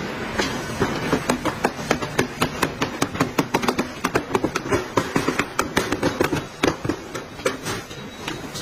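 Plastic clips and trim snapping and knocking as a black lower grille is pressed by hand into a plastic car bumper cover: quick, irregular sharp clicks, several a second.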